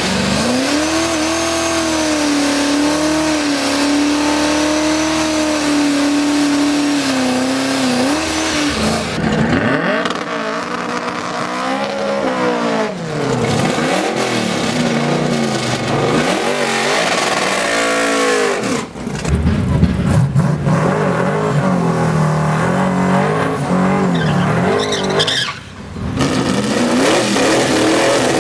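Drag cars doing burnouts, one after another: first an engine held at a steady high rev for about eight seconds as the rear tyres spin, then engines revving up and down repeatedly with tyre squeal. The sound changes abruptly a few times as one car gives way to the next.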